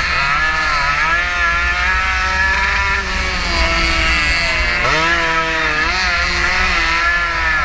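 A 115cc racing motorcycle's engine, heard from on board, running hard: its pitch drops at the start and again about five seconds in, then climbs back up as it revs out of the corners. Wind rumbles on the microphone throughout.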